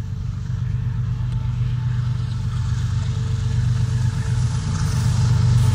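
Diesel locomotive of an approaching goods train: a low, steady engine drone that grows gradually louder as it nears.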